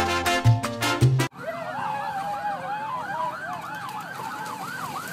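Music with maracas cuts off suddenly about a second in, and a siren takes over: a fast repeating up-and-down yelp over a lower, slower wavering wail.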